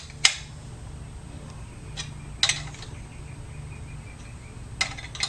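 A handful of short, sharp metal clicks and clinks, a second or two apart, from tools working a nut on a bolt welded to a two-stroke dirt bike's expansion-chamber pipe to pull out a dent. A steady low hum runs underneath.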